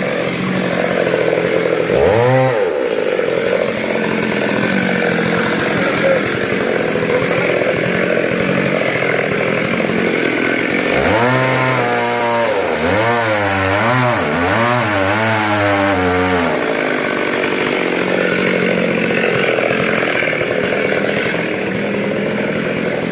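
Chainsaw running steadily for the whole stretch. Its pitch swings up and down briefly about two seconds in, then again repeatedly from about 11 to 16 seconds in, as the engine speed rises and falls.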